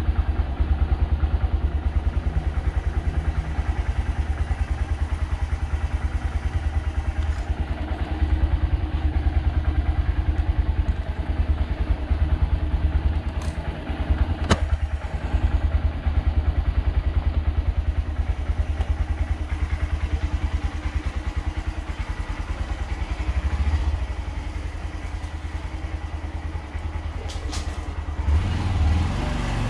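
Motorcycle engine running steadily as the bike is ridden along the road, a deep pulsing rumble, with a few sharp clicks about halfway through and again near the end.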